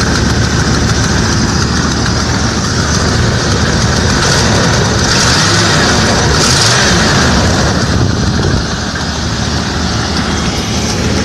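1995 Ford F-250 engine running with its suspect sensor unplugged, the engine now staying running despite its no-start and stalling fault: a sign the unplugged sensor is the bad part. The sound swells in the middle and eases slightly near the end.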